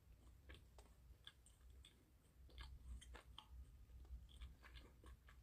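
Faint chewing of a Snickers Peanut Brownie candy bar: soft, irregular crunchy clicks from the mouth, coming more often from about halfway through.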